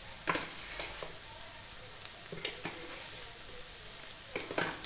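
Sautéed shallots, tomato and green chillies sizzling steadily in hot oil in a metal pan. A steel spoon stirs in the chilli powder, scraping and knocking against the pan several times.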